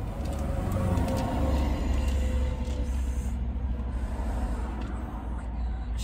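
Low vehicle rumble heard from inside a car's cabin, growing louder about a second in and easing off after the middle.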